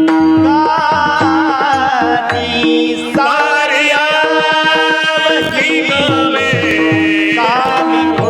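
Marathi kirtan singing: a voice sings an ornamented chaal melody with wavering, gliding notes over a steady held drone note and tabla strokes.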